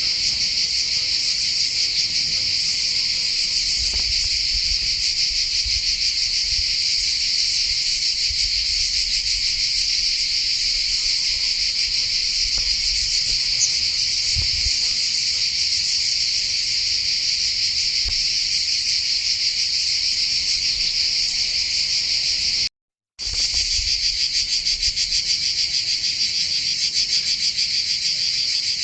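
Steady chorus of insects, a dense high-pitched shrill buzz made of rapid pulses. It cuts out completely for a moment about three-quarters of the way through, then resumes.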